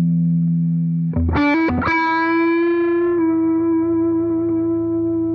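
Electric guitar with distortion: a held chord rings out, then a couple of new notes are picked about a second in and a single note sustains steadily.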